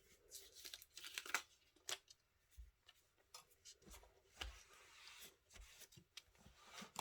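Faint rustling and crinkling of a small piece of clear plastic packaging being handled and pressed onto a card, with scattered light clicks and taps.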